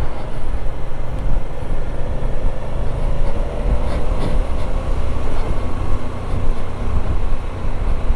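Motorcycle riding along a street, its engine running steadily under heavy wind rush on the microphone.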